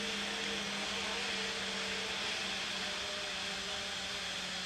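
Steady whirring hum of a camera drone's motors and propellers in flight, with a constant hiss and a faint hum that wavers slightly in pitch.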